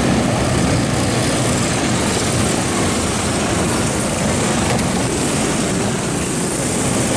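A pack of dirt go-karts with Harbor Freight Predator 390 single-cylinder four-stroke engines racing past at speed: a steady, loud buzz of many small engines together.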